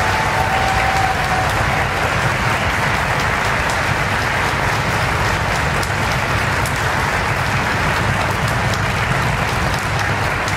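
Audience applauding steadily: a dense, even clapping that fills a theatre hall.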